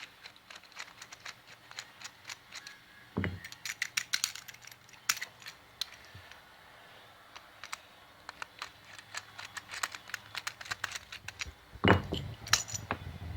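Small screwdriver working at a generator carburetor's main jet to unscrew it: a string of light metallic clicks, ticks and scrapes, with a louder knock near the end.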